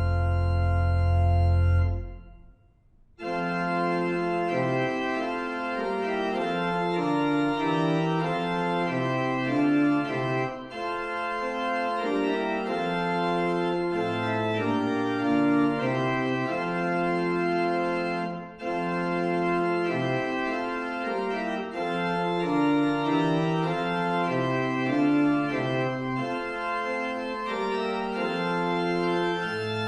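Organ music: a held chord with a deep bass note ends about two seconds in, and after a short break the organ goes on playing a slow succession of chords.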